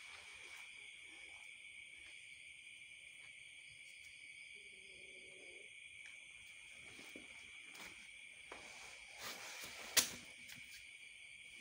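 Kitten giving a faint low defensive growl about halfway through, over a steady high chirring of crickets. A sharp knock near the end is the loudest sound.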